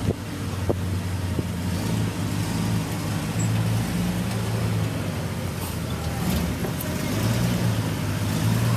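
A motor engine running steadily with a low hum, getting a little louder about seven seconds in.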